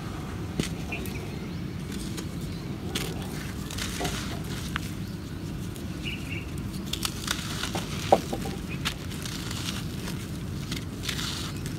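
Lumps of dry, gritty dirt crunching and crackling as they are crumbled by hand, with grit pattering as it pours through the fingers, over a steady low rumble. One sharper snap comes about eight seconds in.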